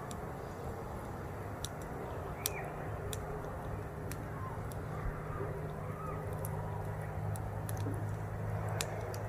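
Small campfire crackling, with scattered sharp pops. Under it a low steady hum comes in about two and a half seconds in and grows louder.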